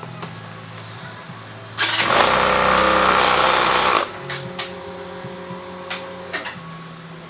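Background music, interrupted about two seconds in by a loud rushing burst of noise that lasts about two seconds and cuts off abruptly, followed by a few sharp clicks.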